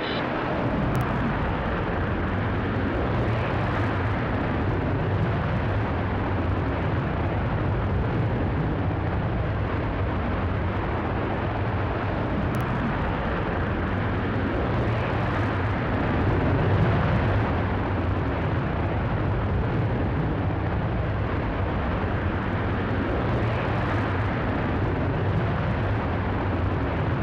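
Virgin Galactic SpaceShipTwo VSS Unity's hybrid rocket motor firing just after ignition: a steady, even rush of noise with a strong low rumble, starting suddenly and holding level through the burn.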